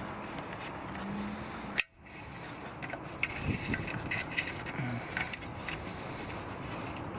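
Steady outdoor background noise with a sharp click and a brief dropout about two seconds in, followed by scattered light clicks and scrapes of hand work while fitting a car's ABS wheel-speed sensor.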